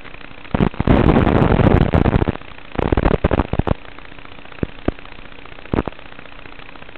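Steady low hiss and faint hum of an FPV goggle DVR's audio track, broken by two stretches of loud crackling noise, the first starting about half a second in and lasting nearly two seconds, the second about a second long near the three-second mark. A few single sharp clicks follow.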